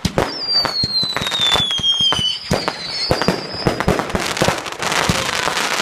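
Fireworks display: many rapid bangs from exploding shells, with a whistling firework falling in pitch for about two seconds near the start, and a burst of dense crackling near the end.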